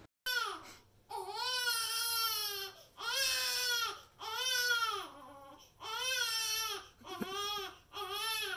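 Repeated drawn-out wailing cries, each rising and then falling in pitch, about seven in a row with short gaps between; the second is the longest.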